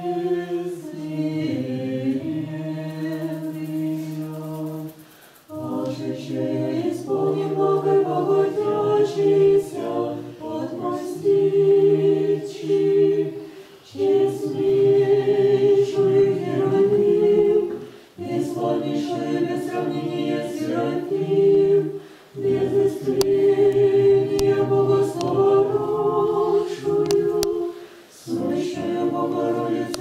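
Small mixed choir of men's and women's voices singing Orthodox church chant a cappella, in long held phrases separated by short pauses.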